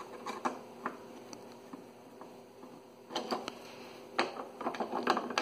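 Light, scattered clicks and ticks of a Phillips screwdriver turning a screw out of a side marker lens, sparse at first and busier in the last two seconds.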